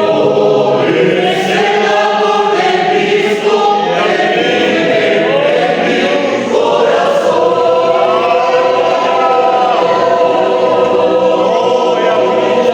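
Choir singing, many voices holding long notes together.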